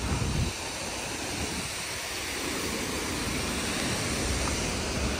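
Steady rushing roar of a large waterfall in heavy flow, with a brief low rumble at the very start.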